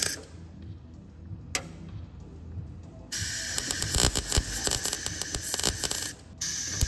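MIG welder arc crackling as it tacks and runs short beads on a thin sheet-steel floor-pan patch. A short burst right at the start, a pause of about three seconds, then about three seconds of steady crackling that breaks off briefly and starts again near the end.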